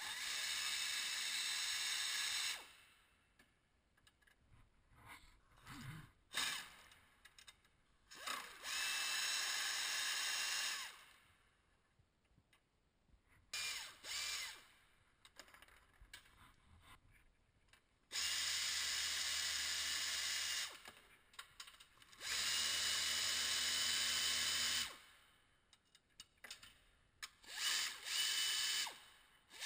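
Pneumatic air ratchet spinning out the upper radiator core support bolts, in about six short runs of one to three seconds each with pauses between. Each run is a steady hissing whir with a faint high whine.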